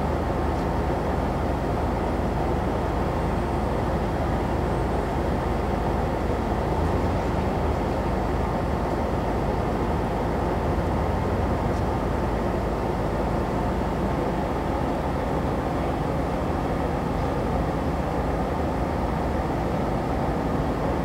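CKD8G diesel-electric locomotive idling at a standstill, a steady low hum that does not change.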